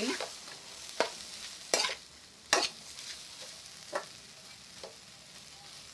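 Metal spatula scraping and knocking against a steel wok while sliced onions are stir-fried, over a faint sizzle. About five sharp scrapes, most of them in the first half.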